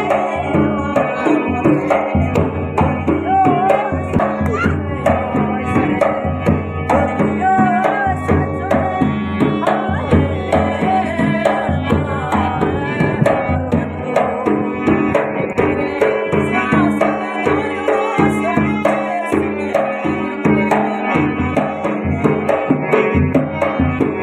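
Rajasthani Manganiyar folk song: a singing voice with sustained instrumental accompaniment over hand-drum percussion in a steady beat.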